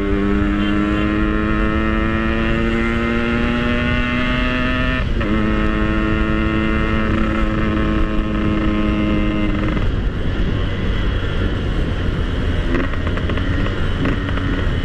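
Yamaha RX-King two-stroke single-cylinder engine pulling hard under acceleration, its note rising steadily. About five seconds in it breaks and drops for a gear change, then climbs again. Near the ten-second mark the rider rolls off the throttle and the engine note fades under wind and road noise.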